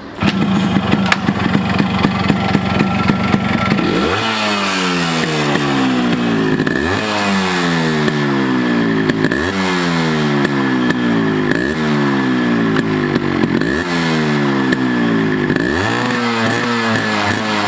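Yamaha RX 100's two-stroke single-cylinder engine idling steadily, then blipped repeatedly from about four seconds in: the revs jump sharply and die back slowly, about every two seconds.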